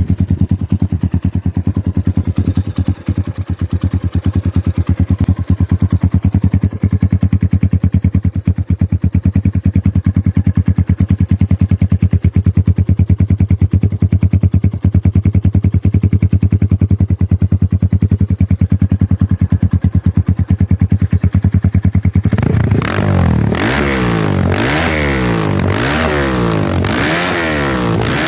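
Kayo K2 dirt bike engine idling with a fast, even beat, then revved several times near the end, its pitch rising and falling with each blip of the throttle.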